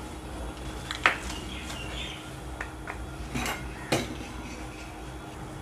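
A few light clicks and taps of small objects being handled on a workbench as a plastic battery-tester box is picked up; the clearest clicks come about a second in and again near four seconds.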